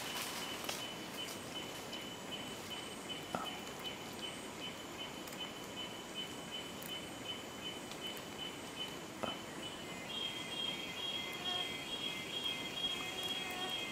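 Rainforest background of insects: a steady high-pitched drone, joined about ten seconds in by a second, rhythmically pulsing high call. A couple of faint brief clicks.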